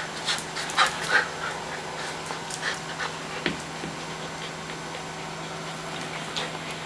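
Small dog playing with a ball at a person's legs: a scatter of short, sharp clicks and taps, the loudest two about a second in.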